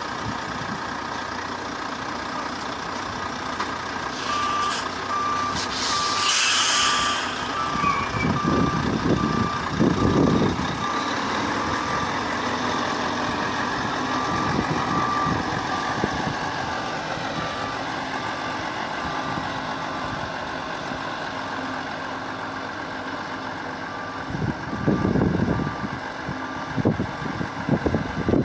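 Volvo superlink truck reversing: the diesel engine runs with a reversing alarm beeping at a steady rate from about four seconds in. There are two short air-brake hisses at about four and six seconds.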